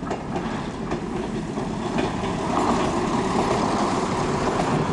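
Diesel railbus with a trailer car passing close by, its engine and wheels growing louder as it draws level, with wheel clicks over the rail joints.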